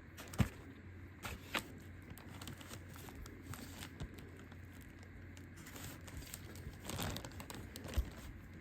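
Handling noises from a slime-making kit: scattered light taps and a few sharper knocks, with some crinkling rustle near the end.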